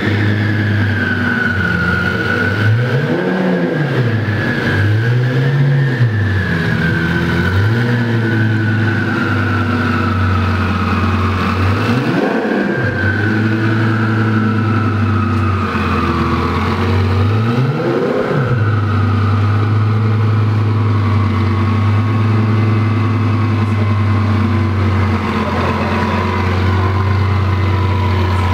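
Twin-turbocharged V10 of a 2008 Lamborghini Gallardo Superleggera idling through its exhaust. The throttle is blipped three times in the first eight seconds, then revved harder twice, about twelve and eighteen seconds in, each rev rising and falling back to idle.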